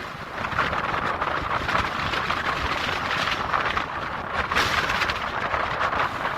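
Strong gusty wind blowing across the microphone, mixed with waves washing onto the beach, a rushing noise that swells and eases with the gusts.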